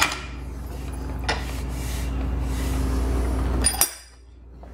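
A few sharp metal clinks from a bench vise's sliding steel handle being worked and let drop, over a steady low hum that cuts off about four seconds in.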